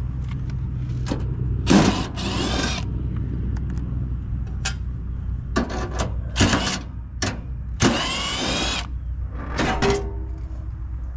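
Cordless power driver spinning screws out of an air-conditioner condensing unit's access panel in several short runs of rising whine, the longest about eight seconds in. A steady low hum lies underneath.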